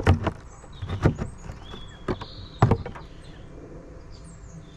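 Wooden hive frames and a hive tool knocking and clicking as they are handled: a few sharp knocks in the first three seconds, then quieter. Faint bird chirps sound in the background.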